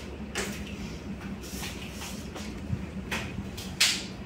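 Kitchen work noises: a handful of short knocks and scrapes from handling things on a steel counter, the loudest near the end, over a steady low hum.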